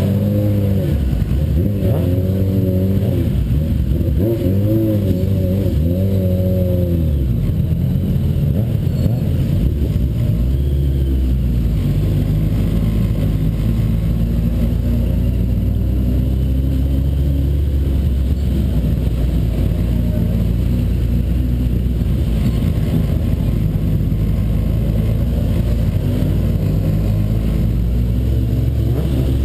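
Suzuki Bandit 1200's inline-four engine revved up and down repeatedly over the first seven seconds or so, then running steadily at a lower pitch.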